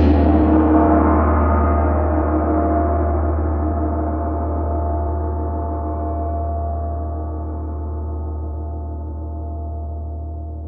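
A gong struck once, then ringing on with a deep hum and many overtones that slowly die away.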